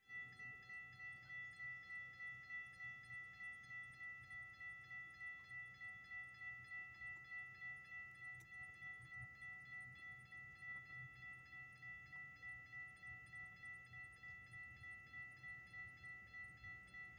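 Railroad grade-crossing warning bell ringing steadily, about two to three strokes a second, while the crossing lights flash and the gates are down, with a faint low hum underneath.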